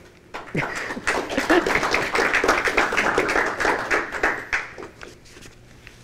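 A small group clapping their hands in applause. It starts about half a second in, holds for about four seconds and then dies away.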